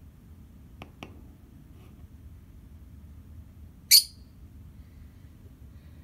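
A small pet parrot gives one short, shrill chirp about four seconds in, preceded by two light clicks about a second in.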